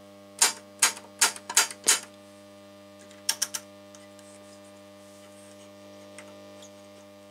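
Helkama HR 886 WS tube radio's loudspeaker giving a steady mains hum, which the owner says it should not make: a sign of a fault in the old set. Over it come sharp mechanical clicks from the radio's piano-key push buttons being pressed, about five in the first two seconds and three more quick ones a little after three seconds in.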